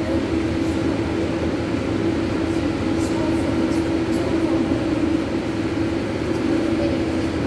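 Steady machinery hum of an indoor pool room's ventilation or filtration equipment, with a constant low tone. Faint brief splashes come from a child paddling on a pool noodle.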